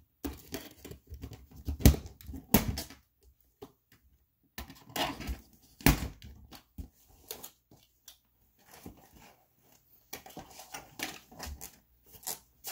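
Cardboard box being handled and pulled open while ties at its base are undone: irregular scrapes, rustling and knocks, with a couple of sharp, louder knocks about two and six seconds in.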